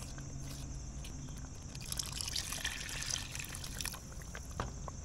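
Crab stock trickling from a plastic bowl into a steel pot of soup base. The pour runs from about two seconds in for a couple of seconds.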